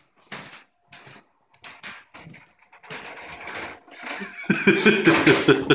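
Clicks and knocks from a small elevator's hinged outer door and its latch as it is opened. Near the end a person laughs loudly.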